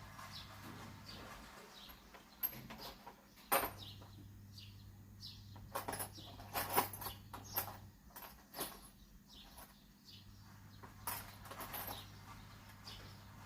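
Scattered clicks and knocks at irregular intervals, with faint bird chirps behind them.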